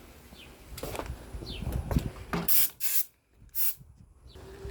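Scraping and rustling of parts being handled during reassembly in an engine bay, with a few short knocks. It breaks off for about half a second of dead silence a little after the middle.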